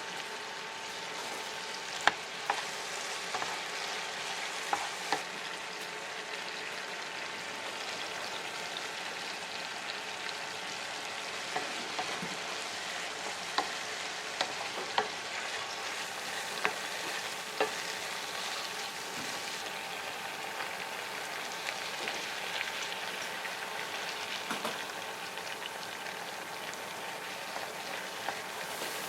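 Food sizzling steadily in a frying pan while it is stirred, with a utensil clicking sharply against the pan now and then.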